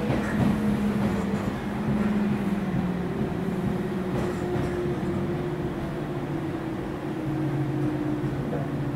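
JR 413 series electric multiple unit running, with rumble from the wheels on the rails. Its traction motors and gears whine in several tones that slowly fall in pitch as the train slows.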